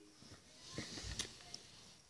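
Handling noise from a hand reaching for and covering the recording device: soft rustling with a few knocks and a low thud, the loudest about a second in.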